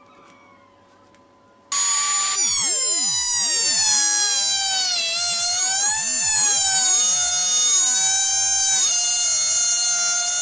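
Electric trim router switched on about two seconds in, running with a loud high whine that sags a little in pitch and wavers as the bit cuts along the edge of a board.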